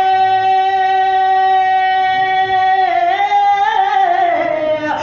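A young man's solo voice singing a naat, holding one long high note for about three seconds, then moving through a few notes and gliding down near the end.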